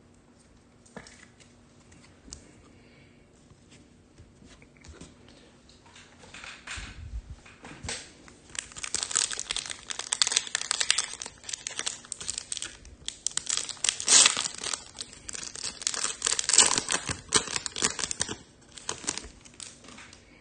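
A 2021 Topps Chrome Formula 1 hobby pack's foil wrapper being torn open and crinkled by hand. Starts a few seconds in with a few light clicks and rustles, builds into busy crinkling for about ten seconds, and eases off near the end.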